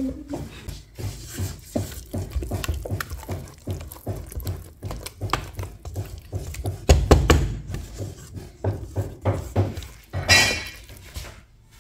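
A silicone spatula stirring and mashing a thick tofu mixture in a stainless steel bowl, with irregular soft knocks and scrapes against the metal. A brief louder scrape comes about ten seconds in.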